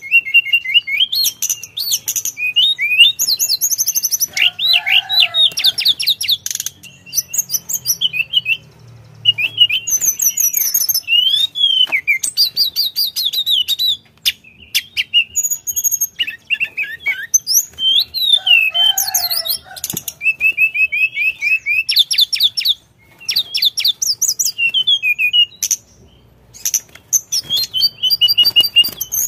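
Male blue flycatcher (tledekan) singing in full song: a long run of rapid, varied, high trilling and warbling phrases separated by brief pauses.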